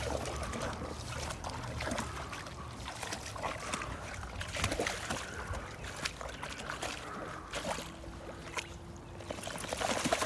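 Boxer dog wading through a shallow brook, water sloshing and splashing irregularly around her legs.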